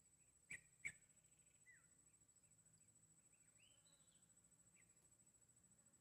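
Near-silent outdoor quiet with two sharp clicks about half a second and a second in, faint scattered high bird chirps, and a thin steady high whine throughout.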